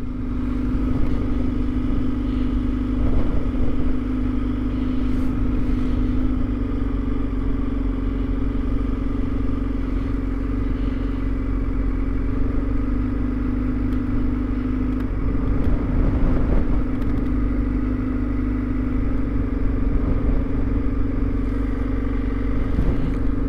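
2021 Kawasaki Z900's inline-four engine idling steadily with a weird rattling noise that the owner doesn't like and can't explain.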